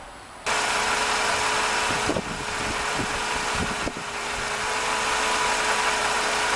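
Mercedes-Benz SLK 230 Kompressor's supercharged 2.3-litre four-cylinder engine idling up close under the open hood, coming in abruptly about half a second in as a steady running noise with a steady whine over it and a few light knocks. It is running after a water-pump replacement while the coolant is topped up.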